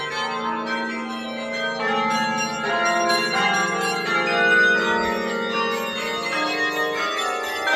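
Church bells ringing loud and close, several bells struck one after another so their long, wavering tones overlap.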